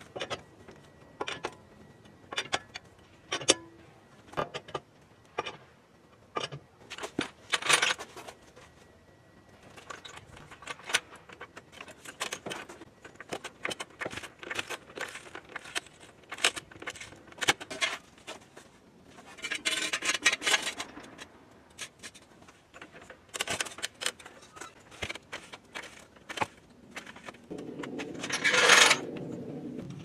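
A run of sharp metal clinks and clanks from a four-way lug wrench working the wheel lug nuts and a hydraulic floor jack being set and pumped under the front of the car, with a few short bursts of scraping.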